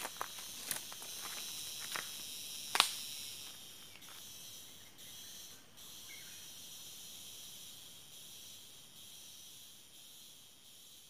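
Steady, high-pitched insect chorus, with several sharp clicks in the first three seconds; the chorus fades a little near the end.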